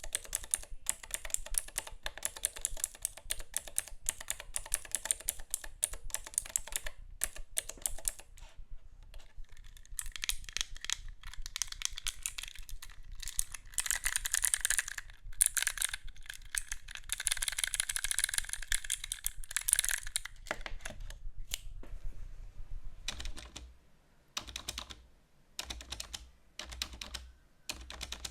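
Typing on a keyboard: fast runs of key clicks, then from about two-thirds in short separate bursts of keystrokes with pauses between them.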